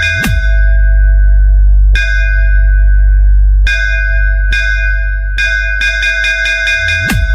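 Bass-heavy DJ remix playing through a JBL speaker: a deep sub-bass under a repeating bell-like synth note with quick drum rolls, and a falling bass sweep just after the start and again near the end.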